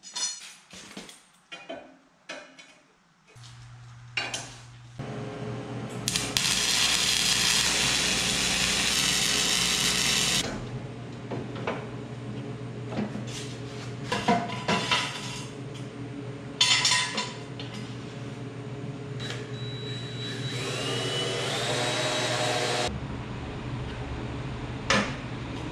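Metal tools clinking and knocking for the first few seconds, then a power tool running in spells, loudest from about six to ten seconds in, with a steady low hum underneath, scattered knocks, and a motor speeding up near the twenty-one-second mark.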